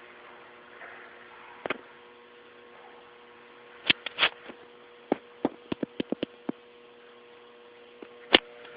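Airsoft guns firing sharp single shots, then a quick string of about eight shots in under a second and a half, over a steady electrical hum.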